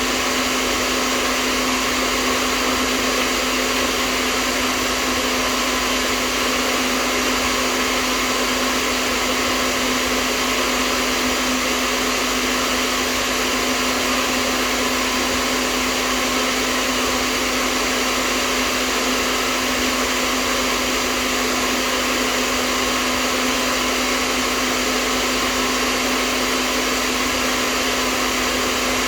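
Hair dryer running steadily: a continuous rush of blown air over a steady low motor hum, unchanging throughout.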